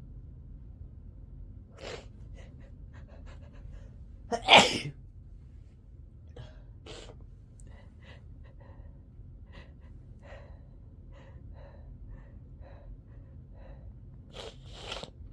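A person's loud sneeze about four and a half seconds in, with a smaller burst a couple of seconds before it. A run of faint short sounds follows, then a sharp double intake near the end as the next sneeze builds.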